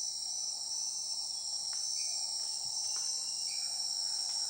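Steady, high-pitched chorus of rainforest insects, crickets or cicadas shrilling without a break. A faint short call sounds a few times beneath it.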